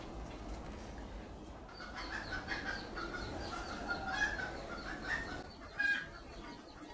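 A bird calling in a run of short, repeated pitched notes over a low steady hum, with one louder note near the end.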